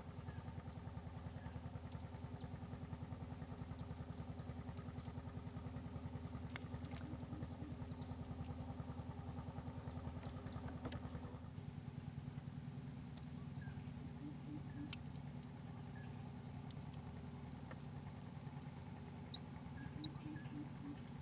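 A small engine running steadily with a fast, even putter; its note shifts about halfway through. A constant high-pitched insect drone runs over it.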